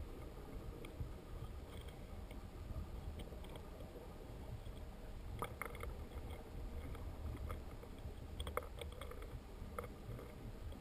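Flowing creek water heard underwater through a submerged camera: a steady, muffled low rumble, with faint scattered clicks.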